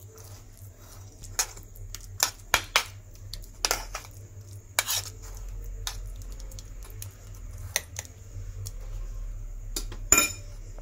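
Metal spoon clicking and scraping against the inside of a small aluminium bowl in scattered, irregular taps while pressing a crumbly chhena (cottage cheese) mixture level.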